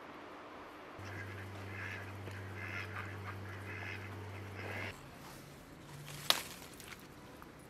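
A flock of domestic ducks quacking repeatedly for about four seconds, over a low steady hum. The quacking stops abruptly, and about six seconds in there is a single sharp click.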